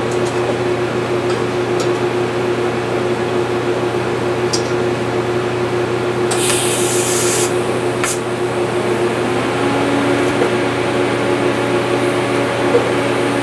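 A steady machine hum with level tones, its pitch pattern shifting slightly about nine seconds in. There is a short burst of hiss about six and a half seconds in, then a sharp click just after.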